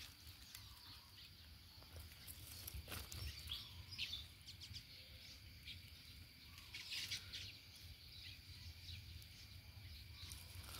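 Faint outdoor ambience: a steady high-pitched hum over a low rumble, broken by brief rustles about three, four and seven seconds in.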